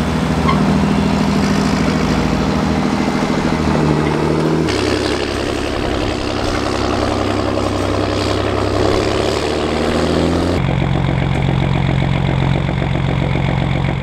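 Straight-piped John Deere six-cylinder diesel tractor engines running steadily while pulling moldboard plows, heard in three clips cut together. The engine note changes abruptly about a third of the way in and again about three quarters of the way through.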